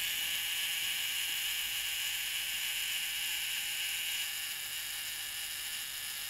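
Minolta SR-1s's mechanical self-timer running down with a steady, high clockwork buzz that weakens over the last couple of seconds. The self-timer is in bad condition and gets stuck before finishing its run.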